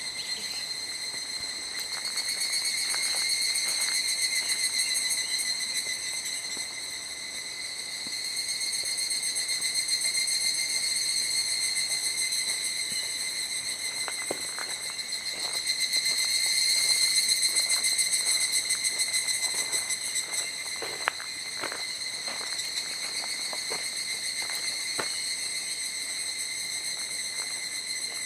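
Insects in the forest trilling in a continuous high-pitched drone, swelling louder and easing off now and then.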